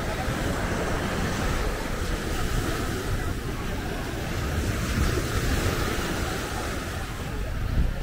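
Steady wash of ocean surf on a beach, with wind rumbling on the microphone.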